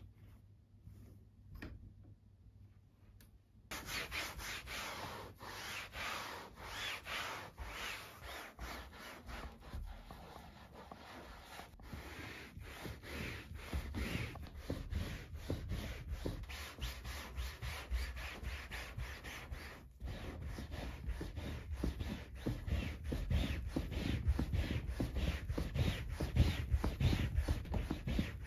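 A rubber-bristled upholstery brush scrubbed quickly back and forth over a suede-like microfiber sofa seat, a fast run of rasping strokes. It starts about four seconds in, after a few quiet seconds with faint handling clicks.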